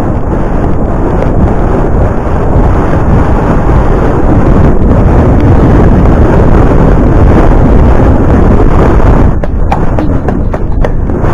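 Wind buffeting a helmet-mounted camera's microphone as the horse moves along, a loud steady rumble, with a few short clicks near the end.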